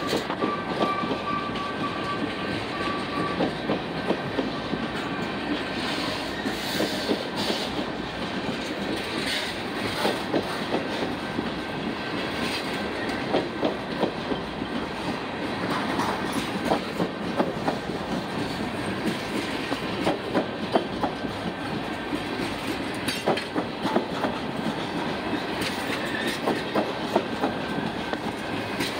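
Tank cars of a long freight train rolling past at close range: a steady rumble with wheels clacking over rail joints, the clacks coming irregularly throughout.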